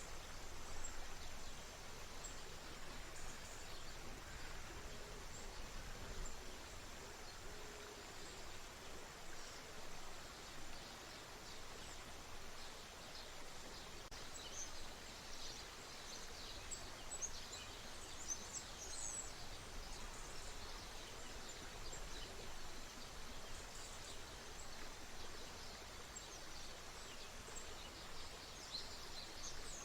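A stream flowing with a steady rush, with small birds chirping in short, high notes, busiest in the middle and again near the end.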